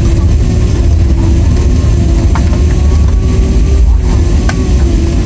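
Cabin noise of a Boeing 767-300ER during its landing rollout, spoilers raised: a loud, steady low rumble from the engines and the wheels on the runway, with a steady hum and a few light rattles.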